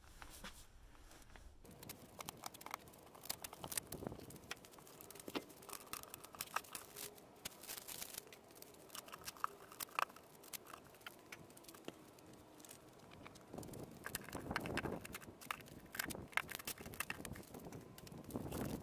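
Cardboard and plastic packing being pulled off stacked wheel-and-tyre sets: scattered crinkling, tearing and light clicks and knocks.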